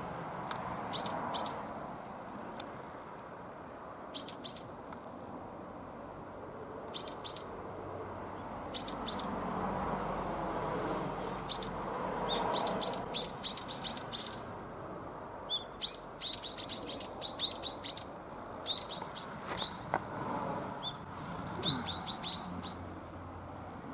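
Brown-eared bulbul, apparently a juvenile, giving short high chirps. They come singly or in pairs at first, then in quick runs of several notes from about halfway through. A faint low rumble sits underneath.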